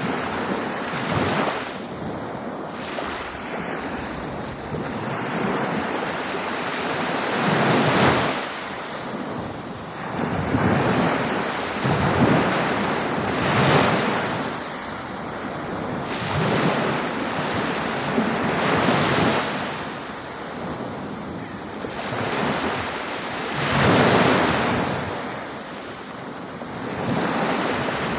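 Ocean surf: waves breaking and washing in, one swell every few seconds, with wind over it.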